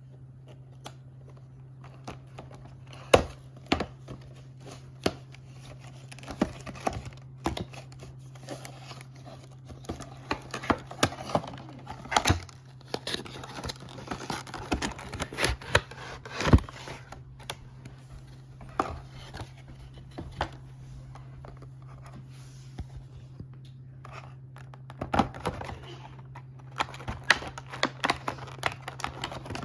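Packaging being opened and handled: tearing and crinkling with scattered sharp clicks and knocks, busiest in the middle, over a steady low hum.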